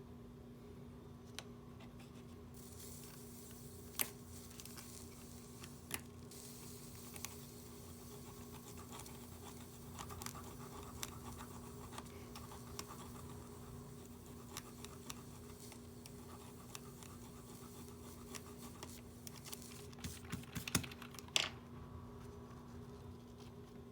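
Small hand tools clicking and scratching against the parts of a Galaxy Gear S3 smartwatch being repaired, in scattered light taps with a cluster of sharper clicks near the end, over a steady low hum.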